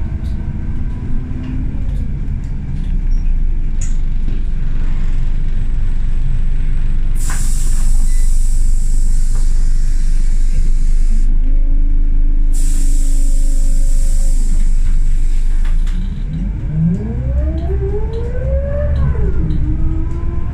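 Scania L94UB single-deck bus's diesel engine heard from inside the saloon, running on the move. Its pitch climbs as it accelerates, drops at a gear change, and climbs again near the end. A loud steady hiss comes in about seven seconds in, breaks off briefly around eleven seconds, and stops around sixteen seconds.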